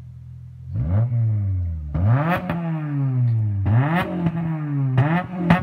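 Honda Civic Si's 2.0-litre four-cylinder engine, muffler deleted, idling briefly and then revved in five quick throttle blips, each rising sharply and falling back, heard straight from the open exhaust.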